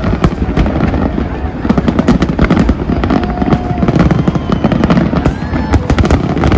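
Fireworks show in full barrage: a dense, continuous run of overlapping bangs and crackles.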